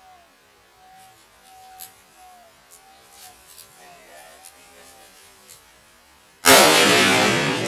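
A single hunting rifle shot about six and a half seconds in, loud and sudden, with a long echo dying away.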